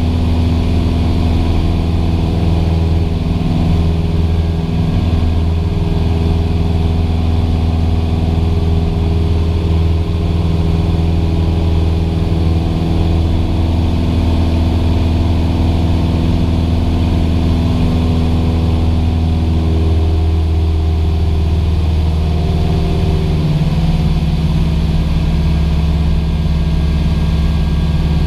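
Cessna 172's piston engine and propeller droning steadily in flight, heard from inside the cockpit. The engine note shifts about twenty seconds in.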